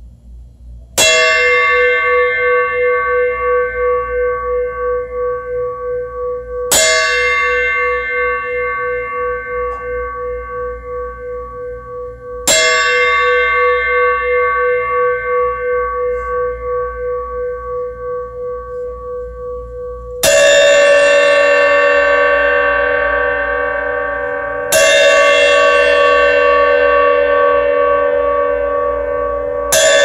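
Paiste Mega Cup Chime 13" struck with a wooden drumstick six times, about five seconds apart, each strike ringing on like a bell with a long, wavering sustain. The last three strikes are louder and brighter.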